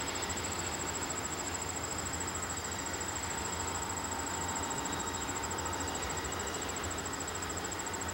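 Diesel locomotive rumbling steadily as it approaches slowly at the head of a freight train. Insects trill steadily at a high pitch over it.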